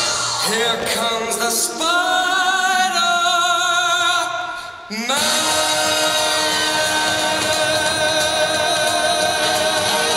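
Figure skating program music played over the rink's sound system: voices singing held, vibrato-laden chords. It fades down briefly about four and a half seconds in, then comes back in suddenly at full level.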